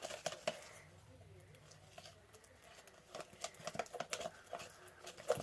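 Plastic spoon stirring thick, sticky slime in a plastic cup: faint irregular clicks and ticks, more frequent in the second half.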